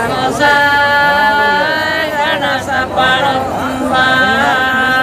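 Unaccompanied voices singing a Santali traditional ritual song in long held notes that bend up and down in pitch, with other voices beneath.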